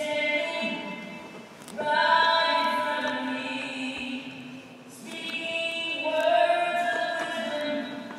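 A choir singing long held notes with little or no accompaniment, in two long phrases, the first starting about two seconds in and the second about five seconds in.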